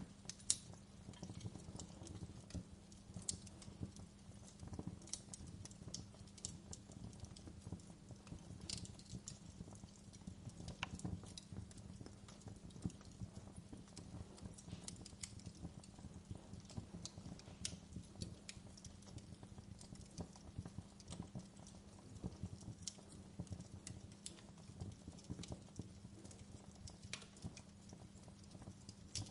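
Wood fire crackling, with irregular sharp pops and snaps scattered over a low, steady rumble.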